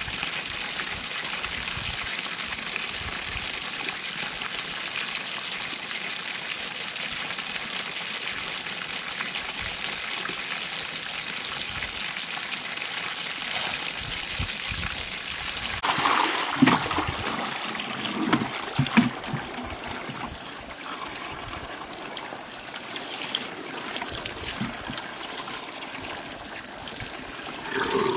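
Water pouring steadily from an outdoor pipe tap onto a concrete wash slab. From about halfway through, irregular splashes and wet slaps join it as soaked clothes are handled and wrung by hand.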